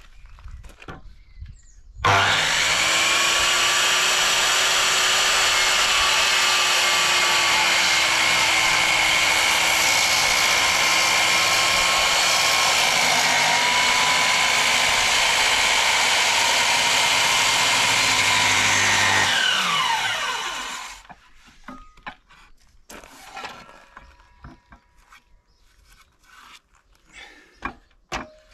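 Makita HS0600 270 mm circular saw starts suddenly about two seconds in and cuts steadily through a timber sleeper for about seventeen seconds, then is released and spins down with a falling whine. The cut was stopped because the blade felt like it was binding and could kick back.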